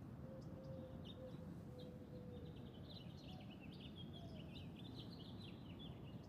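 Several birds chirping over a steady low background noise, the chirps coming thicker and faster about halfway through.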